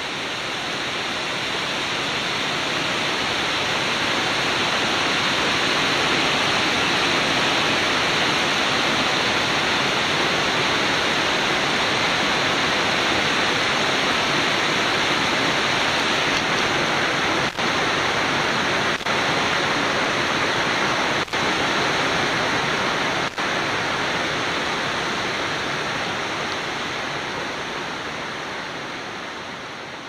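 Steady rush of a cascading waterfall and the stream splashing over boulders below it. The sound swells up over the first few seconds and fades out near the end.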